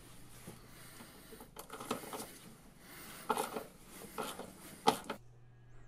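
Hand socket ratchet clicking and socket clinking on an axle mounting plate bolt, in a few short, faint bursts of clicks, cutting off near the end.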